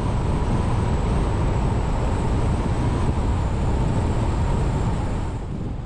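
Vehicle driving at highway speed: a steady low rumble of tyre, road and engine noise heard from inside, with a faint steady whine. It eases off slightly near the end.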